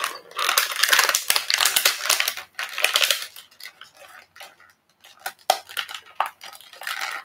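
Toy packaging crinkling and crackling as a figure is worked out of its box, with many sharp clicks. It eases off a few seconds in, then scattered clicks and knocks start again.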